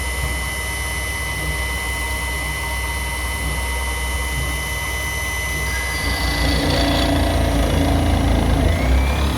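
Homemade CNC milling machine running: a steady machine hum with high fixed whines. About six seconds in it grows louder and new lower tones join, and a rising whine comes near the end, as the machine's motion changes.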